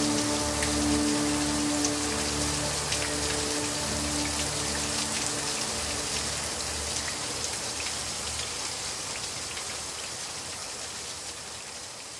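Steady rain falling, with the last held notes of background music dying away over the first few seconds; the whole sound fades out gradually.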